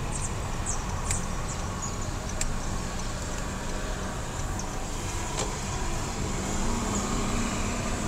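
A car driving slowly on a town street, its engine and tyres making a steady low rumble heard from inside the cabin, with a few faint short high ticks.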